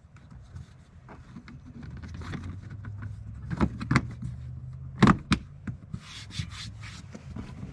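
Plastic dashboard trim panels of a 2014 Ford F-150 being handled and pressed into place by hand: rubbing and scraping with a few sharp clicks and knocks, the loudest about five seconds in, over a low steady hum.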